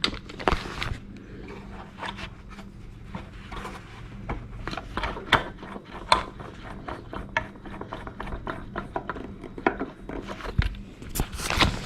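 Screws being turned by hand with a screwdriver into a clock case: a run of small, irregular clicks and scrapes of the screwdriver tip and screw threads biting in.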